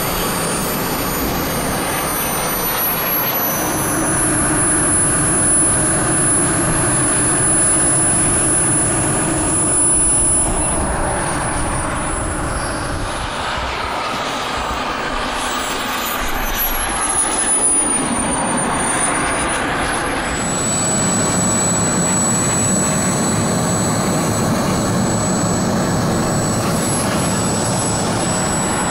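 Model turbine jet engines on RC jets: a steady rushing exhaust noise with a thin, high whine that glides down and back up in pitch as the jets pass low and come in to land.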